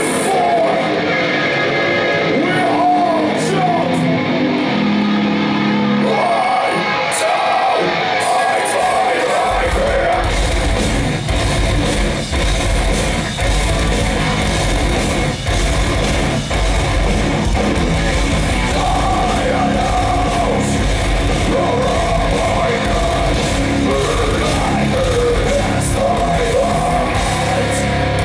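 Heavy metal band playing live, with electric guitars and sung and shouted vocals. For the first several seconds there is little bass, then about a third of the way in the drums and bass guitar come in heavily and the full band plays on.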